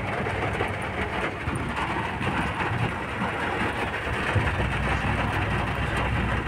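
Heavy rain falling on a car, heard from inside the cabin as a steady hiss over the car's low rumble. The rumble grows stronger about four and a half seconds in.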